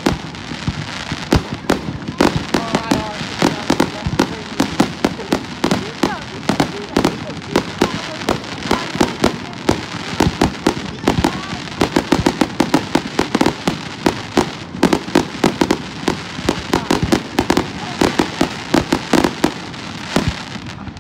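Fireworks display going off: a rapid, near-continuous string of bangs and crackles, several a second.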